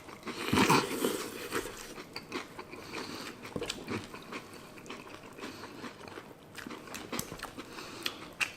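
People chewing big mouthfuls of crunchy breakfast cereal in milk: wet munching and crunching, with a louder burst about half a second in.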